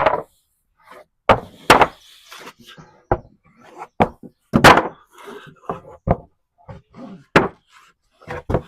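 A string of about ten irregular knocks and bangs, some sharp and some heavier: hard objects being handled, set down or dropped.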